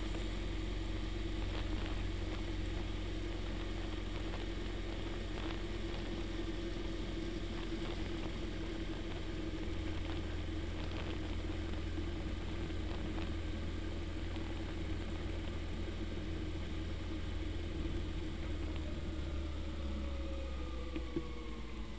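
Steady engine drone with road and wind noise, heard onboard a vehicle cruising in a group of motorcycles. In the last few seconds an engine's pitch falls slowly as it eases off.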